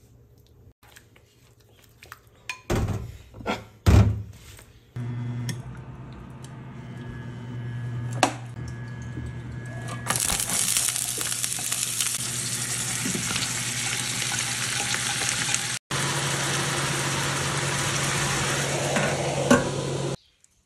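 A few knocks of a utensil against dishes, then, about halfway through, bean sprouts dropped into hot oil in a frying pan sizzle loudly and steadily. A steady low hum runs underneath.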